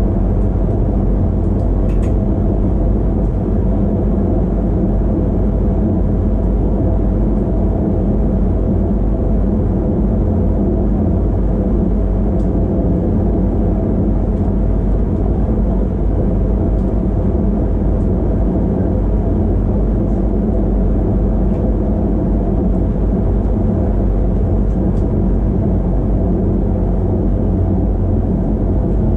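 Cab sound of an SNCB AM08 Siemens Desiro ML electric multiple unit running along the track: a steady low rumble with a steady hum over it.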